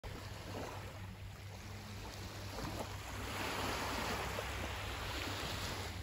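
Sea waves washing on the shore, one wave swelling louder from about three seconds in, over a steady low rumble.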